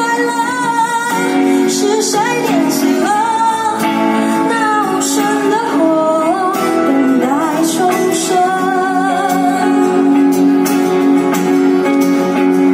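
Live music: a woman singing with acoustic guitar, accompanied by electric guitar, amplified through a stage PA.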